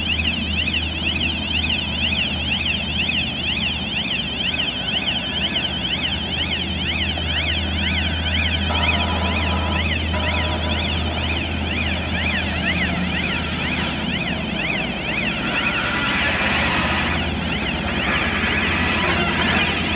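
Travel warning siren on a Cometto box-girder transporter, warbling rapidly and continuously, over the steady low running of the transporter's engine. The alarm signals that the transporter is on the move.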